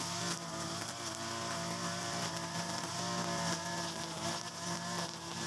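Mitsubishi TU43 two-stroke brush cutter running steadily at high speed, its nylon-line trimmer head cutting through grass.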